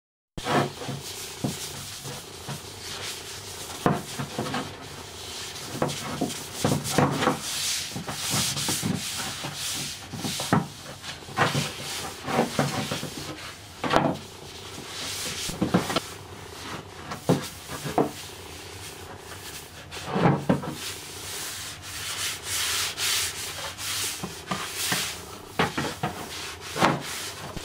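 A cloth wiping back and forth over the primed and sanded fiberglass fender to degrease it, a continuous rubbing with frequent sharp knocks as the panel is handled.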